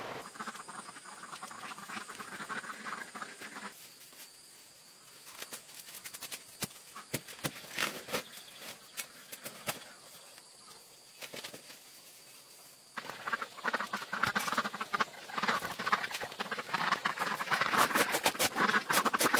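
A large knife cutting a banana stem: scattered sharp knocks through the middle, then quick, even strokes slicing the stem into rounds near the end, several a second, over a steady background hiss.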